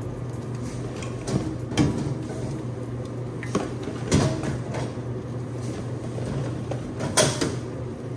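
Tall metal drink cans being loaded into an open vending machine: about five sharp knocks and clacks as cans and machine parts meet, the loudest near the end, over a steady low hum.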